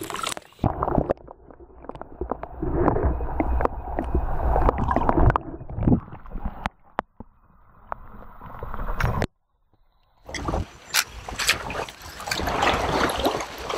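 Water sloshing and splashing against a kayak hull, with handling knocks and rustling. The sound cuts out for about a second past the middle, then clicks and rustling return.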